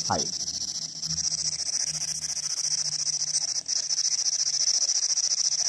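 P-SB11 spirit box sweeping through radio frequencies, putting out a steady high-pitched hiss of static with a fast, even choppy flutter. A faint low drone sits under it from about a second in until near the end.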